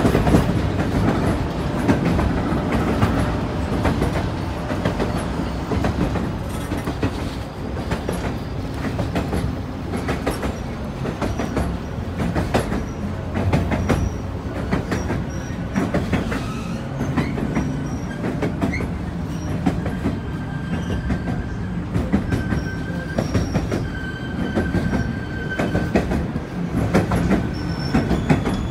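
White Pass & Yukon Route narrow-gauge passenger train running on the rails: a steady rumble with rapid wheel clatter and knocks. From about halfway through, short high-pitched wheel squeals come and go.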